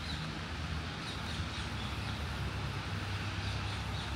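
Low, steady engine rumble in the background, with a faint bird chirp near the start.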